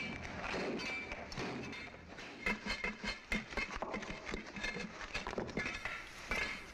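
A hand tool chipping at rock: irregular sharp taps and knocks, some with a short metallic ring, starting about two seconds in.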